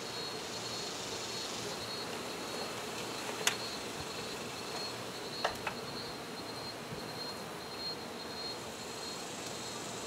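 Honey bees buzzing steadily around a colony disturbed during a comb cut-out, with a thin steady high tone over the buzz. Three sharp clicks come through it, one about a third of the way in and two close together just past the middle.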